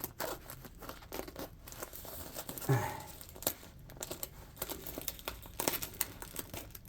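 Packaging of a mail parcel being handled and torn open: irregular crinkling and tearing of the wrapping.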